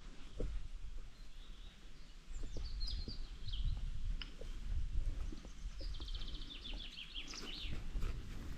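A small songbird sings two short phrases of high chirps, the second a fast trill, over a low rumble of wind and footsteps on the trail.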